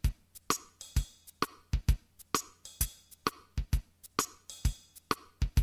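Background music: a steady drum beat of alternating kick and snare hits, about two beats a second.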